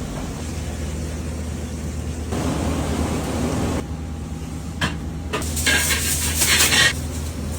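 Kitchen cooking sounds over a steady low hum: a couple of sharp clinks of utensils, then a loud hiss lasting just over a second near the end, typical of food sizzling on a hot surface.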